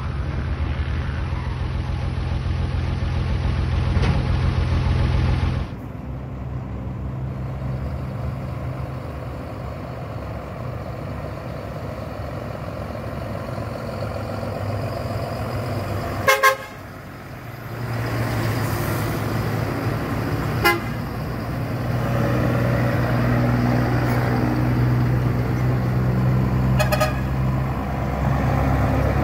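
Diesel truck engines running with a steady low drone, broken by short horn toots: a quick double toot past the middle, a single toot a few seconds later, and a fainter one near the end.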